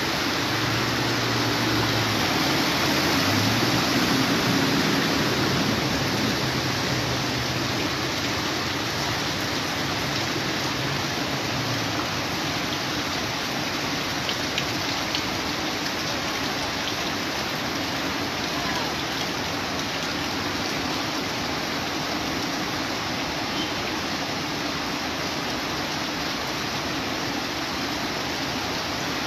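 Floodwater rushing across a flooded street, a steady, even rush. For about the first twelve seconds a car engine runs low underneath as the car wades through the water.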